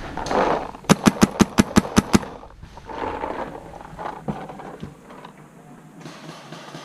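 Paintball marker firing a rapid string of about nine shots in just over a second, followed by fainter, scattered shots from further off.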